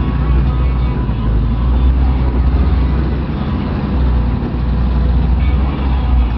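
Off-road 4x4 vehicle's engine running steadily under load on a trail climb, a continuous low drone with some noise over it.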